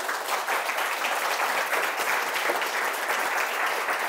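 An audience applauding steadily, many people clapping at once, at the close of a talk.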